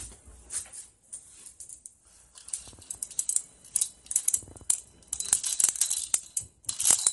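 Crinkling, rattling handling noise of small clicks, sparse at first and thicker from a few seconds in, as things are picked up off a medical exam table and a stethoscope is handled.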